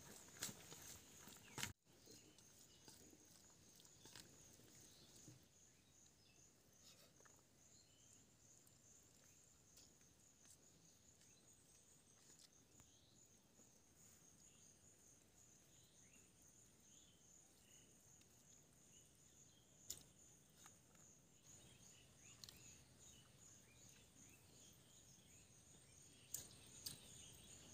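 Near silence: faint outdoor ambience with a steady, high, evenly pulsing insect call, and a few soft clicks.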